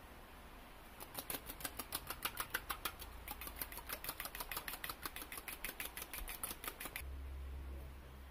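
An egg being beaten with a metal utensil in a stainless steel bowl: quick, even clinks of metal on the bowl, about six a second, which stop about seven seconds in.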